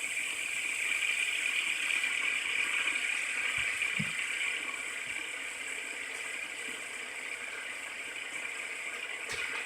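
Fidget spinners spinning on a surface, giving a steady, fairly high whir that eases off a little partway through as they slow.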